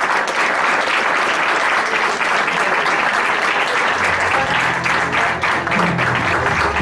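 Audience applauding steadily. About four seconds in, music with a bass line comes in underneath.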